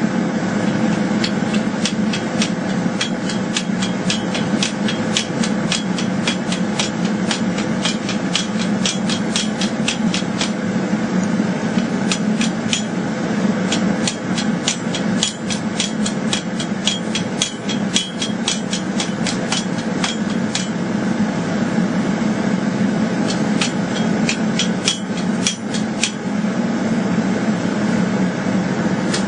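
Hammer blows on steel being forged into a bowie knife blade: quick, even strikes, about four a second, in runs with short pauses. A steady loud drone runs underneath.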